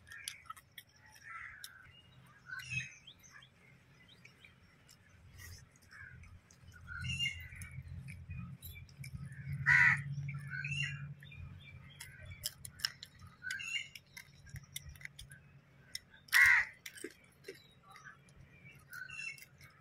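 Crows cawing outdoors, with two loud caws about ten and sixteen seconds in, among smaller bird chirps. Faint clicks and chewing come from a man eating crab and fish with his hands.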